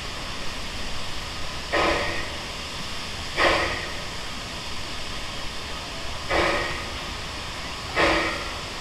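Steam locomotive hissing steadily, with four short, louder bursts at uneven spacing.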